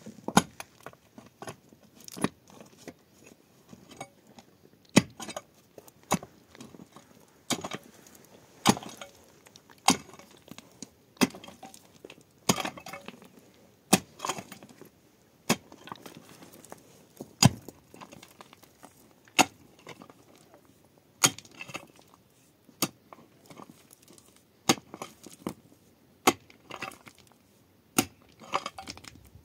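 A long series of sharp knocks and clinks, irregularly spaced at roughly one a second, like a hand tool striking over and over.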